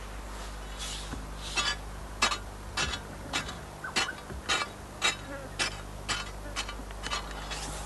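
Digging into dry earth for honeypot ants: a steady run of about a dozen short scraping strokes, a little under two a second, starting about a second in.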